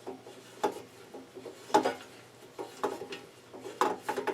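Irregular clicks and knocks of hand tools and metal parts being handled while the cover of a small air compressor is taken off, with the loudest knocks about two seconds in and near the end.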